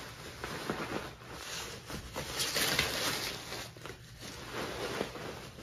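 Bubble wrap rustling and crinkling as hands pull it back and cut it open, with small crackles and clicks throughout, busiest a little past two seconds in.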